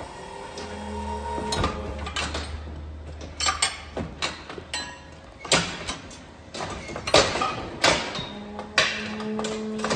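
Steel hoof-trimming chute clanking as its bars and gates are worked, a series of sharp metal knocks, with a hydraulic pump humming low through the first half.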